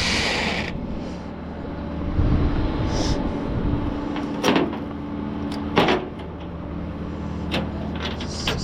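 A vehicle engine idling steadily, most likely the tow truck's, with a short hiss at the start and three sharp knocks spread through the middle and later part.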